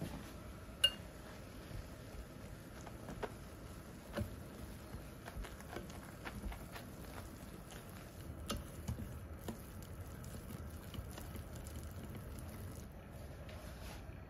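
Wire balloon whisk mixing a thick, foamy flour-and-beer batter in a glass bowl: irregular clicks and taps of the tines against the glass with wet mixing sounds, and a sharper ringing clink about a second in.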